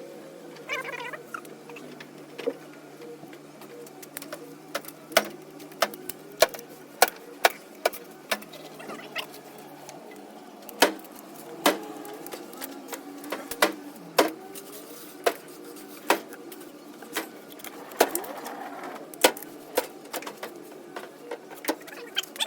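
Metal hand tools clinking and clacking as they are handled and set down in a steel toolbox drawer, a string of irregular sharp clicks about one or two a second.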